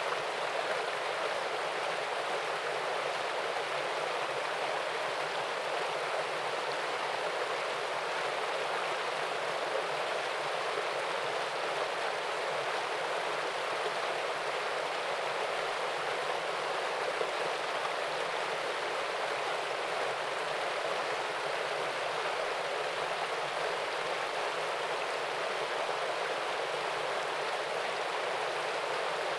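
Small waterfall and stream: water splashing and flowing in a steady, even rush.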